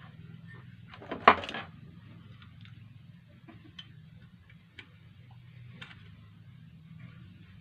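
Small clicks and ticks from handling the parts of a sewing machine's foot pedal speed controller, with one loud clatter about a second in, over a steady low hum.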